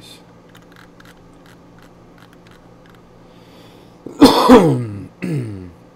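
A man coughs loudly about four seconds in, with a shorter cough just after. Before that only a faint steady room hum.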